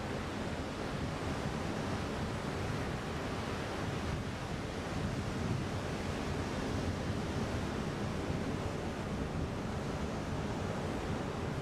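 Ocean surf washing onto a sandy beach, a steady, even rush of waves with no single wave standing out.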